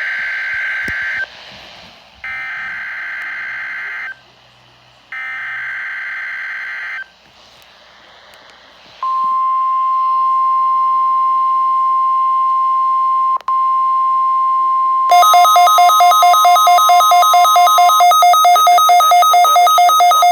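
Weather radio warning-system test signal. It opens with three raspy bursts of digital data tones, each about two seconds long, the alert header. Then comes a steady 1050 Hz warning alarm tone lasting about nine seconds, and about six seconds into it a rapidly pulsing two-pitch beep starts that keeps going after the tone ends.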